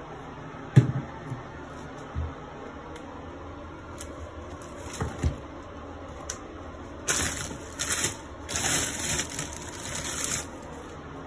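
Rummaging through cleaning supplies in an under-sink cabinet: a few knocks and thumps of items being moved, the loudest about a second in, then several seconds of rustling and crinkling as cloths and rubber gloves are pulled out.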